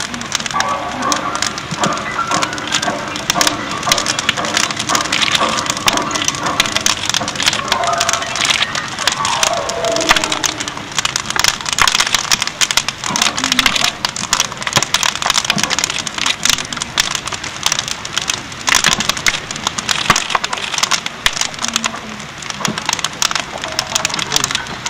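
Wood fire crackling and popping densely and irregularly as a wooden grand piano burns.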